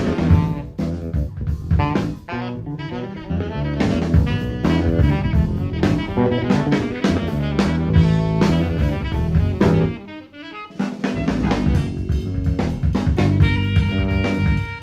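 Live jazz trio: a busy drum kit with many strikes and rimshots over a Fender Jazz electric bass line. The band drops out briefly about ten seconds in. Alto saxophone notes come in near the end.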